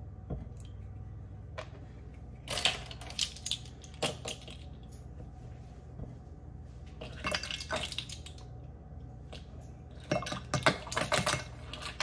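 Measuring spoons, cups and dishes clinking against each other in four short clusters of clatter, the loudest near the end, over a low steady hum.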